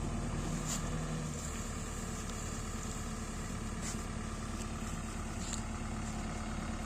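JCB 3DX backhoe loader's diesel engine running steadily, with a few faint sharp ticks over it.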